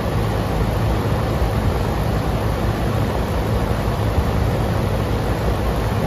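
York air-conditioning condenser running: the outdoor fan and compressor give a steady rushing noise over a low hum. The system is low on its R22 refrigerant charge, its suction pressure reading low on the gauges.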